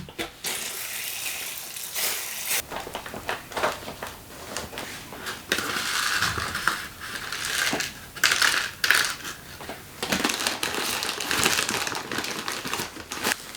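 Rustling and crunching handling noises from sowing seeds by hand, in several uneven bursts.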